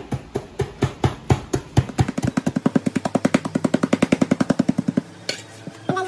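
Peanuts being pounded into small bits by hand in a small container. The strikes are slow at first, about four a second, then quicken after about two seconds into a fast even rattle of about a dozen a second, and stop about five seconds in.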